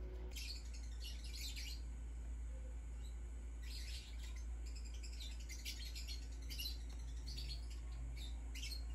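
Faint bird chirping in scattered bursts over a low, steady hum.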